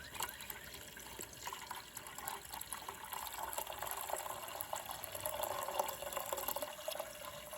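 White vinegar being poured into a coffee can: a steady stream of liquid splashing and filling.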